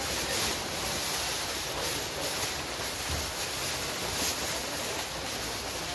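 Steady, even outdoor background noise with no distinct events.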